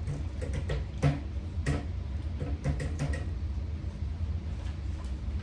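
A scatter of light knocks and clicks from table parts being handled and fitted during assembly, the sharpest a little after a second in, over a steady low hum.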